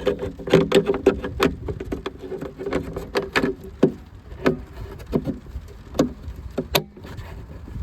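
Irregular sharp plastic clicks and taps as a new wedge brake-light bulb is pushed into its plastic bulb holder and the holder is handled. A low steady hum runs under the first two or three seconds.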